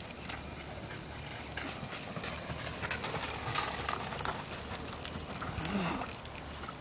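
Horse trotting on arena footing: a steady run of hoofbeats that grows louder as the horse passes close, about three to four seconds in, then fades as it moves away.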